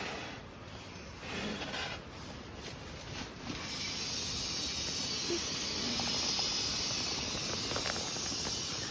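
Air being pushed from a NEMO Vortex pump sack into an inflatable sleeping pad. First come a few soft puffs of breath blown into the sack. About three and a half seconds in, a steady hiss of air rushing into the pad takes over as the sack is pressed down.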